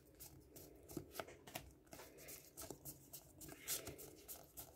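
Faint rustling and soft flicks of Yu-Gi-Oh! trading cards being sorted by hand, the cards sliding over one another in a stack.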